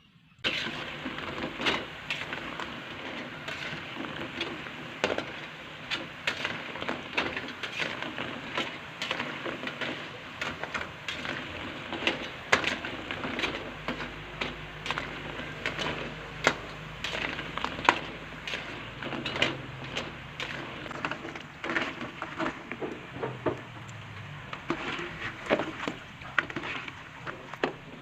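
Cimol (tapioca dough balls) frying in oil: steady sizzling with frequent sharp pops, starting suddenly just after the start.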